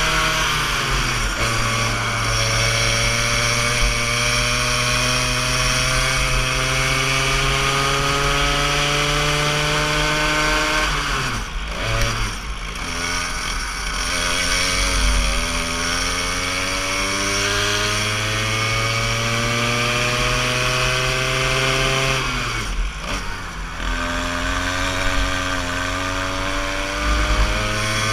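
Go-kart engine at full throttle, its pitch slowly rising as the kart gathers speed down the straights. The pitch drops sharply twice, about 11 and 23 seconds in, as the driver lifts off for corners, then climbs again.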